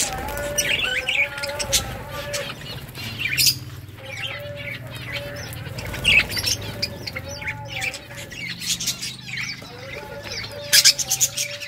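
Budgerigars chirping and chattering: many quick, sharp high calls overlapping without a break.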